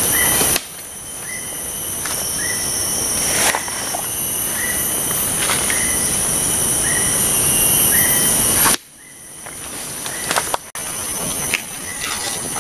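Footsteps and rustling through tall grass and undergrowth, under a steady high insect drone and a short chirp that repeats about once a second. The whole background drops sharply about half a second in and again near nine seconds, then builds back up.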